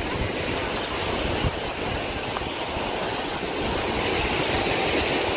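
Sea surf washing up a sandy beach, a steady rushing noise that swells a little about four seconds in.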